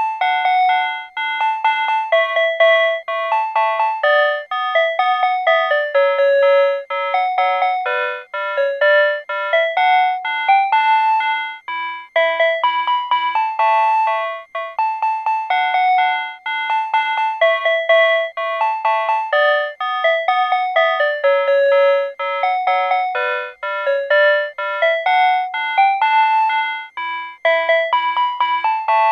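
PATLITE electronic annunciator playing a Tobu Railway signal-clearance tone, a chime-like tune of clean electronic notes repeated over and over. It signals to the one-man train's crew that the departure signal has cleared, and it keeps looping as long as the signal stays clear.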